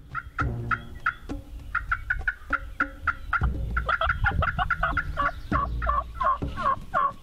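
Turkey yelping: a series of short, repeated notes. About four seconds in they come quicker and louder, each breaking between a higher and a lower pitch.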